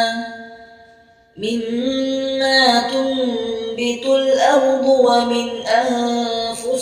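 Melodic Quran recitation: a reciter's long chanted note fades away, and after a pause of about a second and a half a new long phrase begins, held and wavering in pitch.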